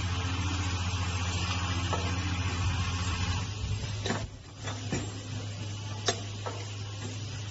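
Ultrasonic welding machine for breathing valves running: a steady low hum with hiss. The sound drops briefly about four seconds in, and a couple of sharp clicks follow.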